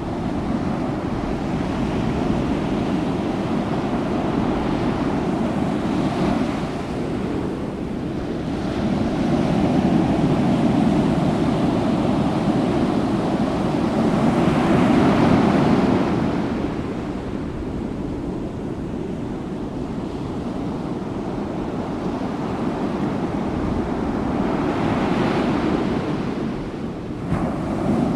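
Rushing sea waves and wind, swelling and easing in slow surges.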